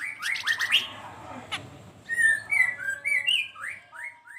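Flamboyan songbird singing vigorously: a fast, continuous run of short whistled chirps and slurred notes, with a single sharp click about a second and a half in.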